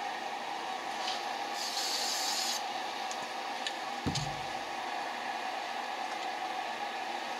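One short burst, about a second long, of an aerosol spray can of black enamel paint hissing. About four seconds in there is a sharp click and a brief dull thud.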